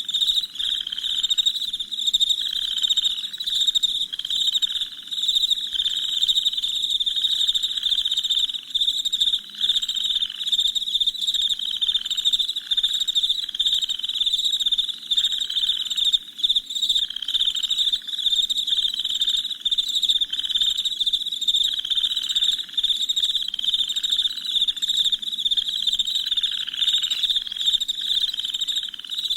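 A dense nighttime chorus of crickets chirping without pause: a high, shrill chirping repeated many times a second, with a lower pulsing call beneath it about twice a second.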